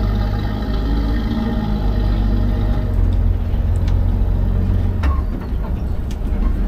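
Open passenger tram moving along, heard from its rear bench: a steady low engine drone with a faint even hum, and a few sharp clicks and knocks from about four seconds in.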